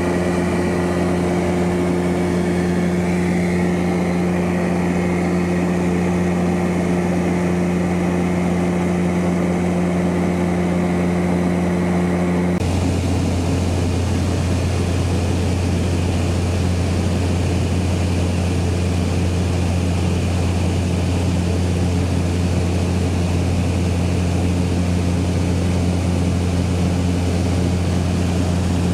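Steady drone of a propeller aircraft's engines heard from inside the cabin, a loud low hum with a few steady tones. About twelve seconds in, the drone changes suddenly to a slightly different steady hum.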